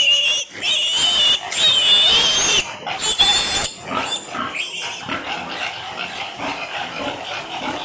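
Piglets squealing loudly and high-pitched, about four long squeals in the first few seconds, then quieter, irregular noise from the pigs.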